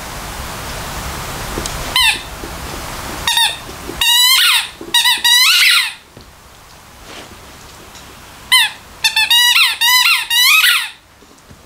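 A rubber squeaky toy squeaking as a dog chews it. A single squeak comes about two seconds in, then another, then a run of squeaks. After a pause there is a quick burst of rapid squeaks near the end.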